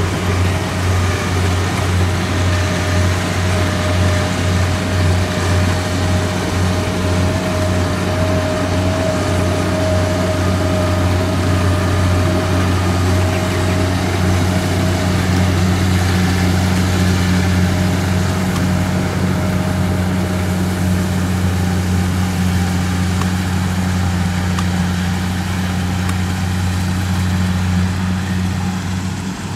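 Kubota DC70 combine harvester running steadily as it harvests rice, a low diesel engine hum with a higher steady whine that fades out about halfway through.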